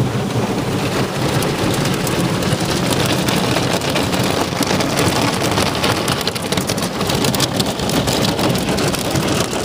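Automatic car wash working over a car, heard from inside the cabin: a loud, steady hiss of water and soapy foam drumming on the windows and body, sounding like heavy rain, with denser pattering from about four seconds in.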